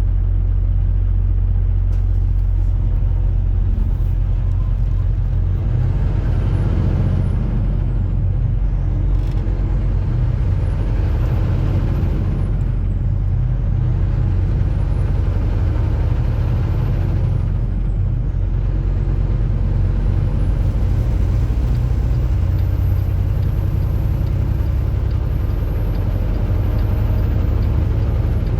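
Semi-truck diesel engine running, heard from inside the cab as a steady low drone. A thin high whistle rises and falls three times, then holds steady from about twenty seconds in.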